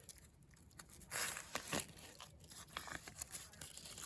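Faint crinkling and tearing as the wrapping is peeled off an ear of corn fresh from the campfire, in short irregular rustles, the loudest about a second in.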